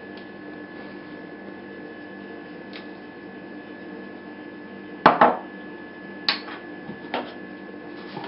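Spice jars being handled at a tiled counter: three short knocks and clinks, the first about five seconds in and the loudest, over a steady faint hum.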